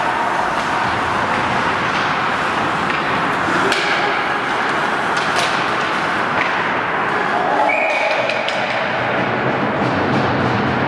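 Ice hockey play on a rink: a steady hiss of skates on the ice, with a few sharp clacks of sticks and puck around the middle and players' voices calling out.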